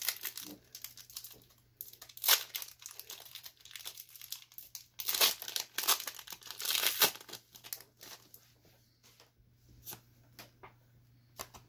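Foil wrapper of a Pokémon Vivid Voltage booster pack being torn open and crinkled, loudest about two seconds in and again from about five to seven seconds in. Softer clicks and rustles follow as the cards are taken out and handled.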